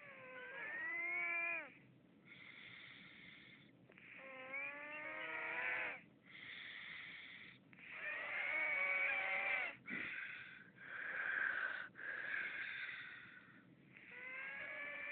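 A man snoring in his sleep, in repeated breath cycles. Each in-breath is a wheezy snore whose pitch glides upward, and each out-breath is a breathy rasp; about four cycles pass.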